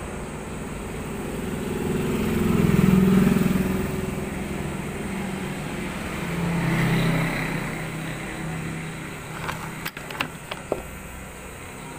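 Road vehicles passing on the street outside, the sound swelling to its loudest about three seconds in and again around seven seconds. A few sharp knocks come near the end as the camera is bumped.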